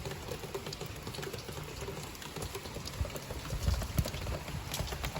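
Steady heavy rain falling, a dense patter of drops, with a brief low rumble about three and a half seconds in.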